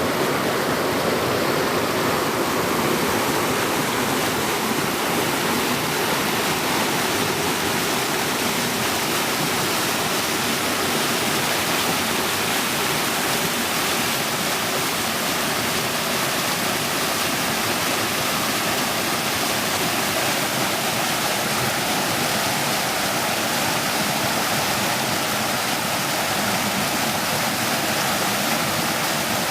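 A small stream rushing and splashing over rocks, a steady full sound of flowing water.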